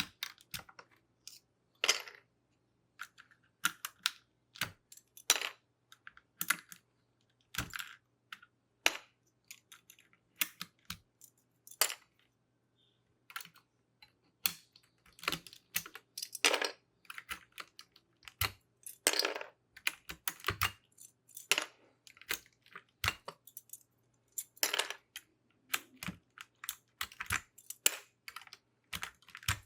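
Plastic keycaps being pulled off a keyboard one by one: irregular sharp plastic clicks and clacks, with a short pause partway through.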